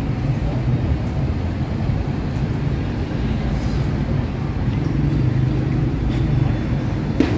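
City street traffic: a steady low rumble of car engines and tyres, with one short sharp click near the end.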